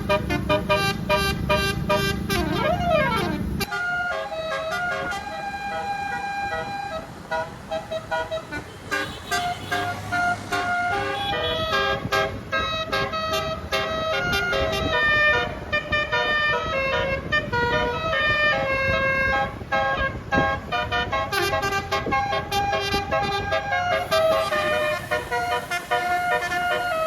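Multi-tone Indonesian 'telolet' bus horn, an 18-note 'basuri' horn, playing a quick melody of short held notes that change pitch one after another. For the first few seconds a low engine rumble runs under it, with a rising-then-falling sweep in pitch just before the rumble drops away.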